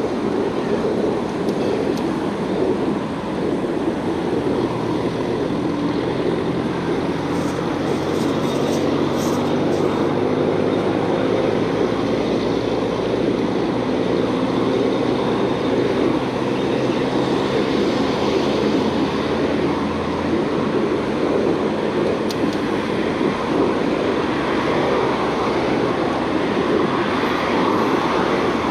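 Wind rushing over the microphone of a camera riding on a moving bicycle, mixed with road traffic on the adjacent street. A low, steady engine hum from a vehicle runs from about five seconds in to about twenty seconds in.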